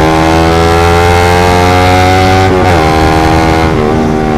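Suzuki GSX motorcycle with a short Pro Liner aftermarket exhaust accelerating hard, its engine pitch climbing, then dropping at an upshift about two and a half seconds in and climbing again, with a further drop near the end. The exhaust note is loud and not very muffled.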